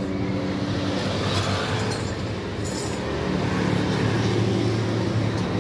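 An engine running steadily, its pitch shifting slightly, with a couple of light metal clinks.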